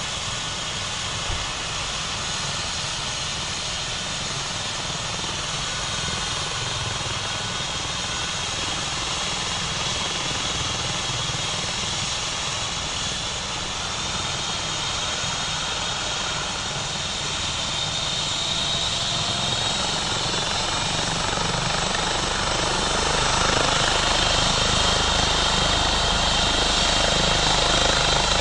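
A helicopter running on the ground, a steady engine-and-rotor noise that grows louder over the last ten seconds or so.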